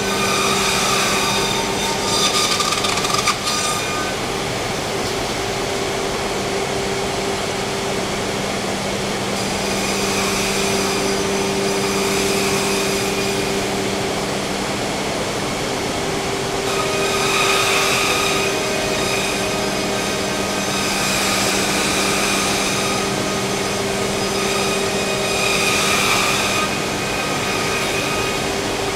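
Freedom Machine Tool Patriot CNC router running: a steady machine hum throughout, with higher-pitched whining passages of about two seconds that come and go every few seconds as the spindle head moves over the board.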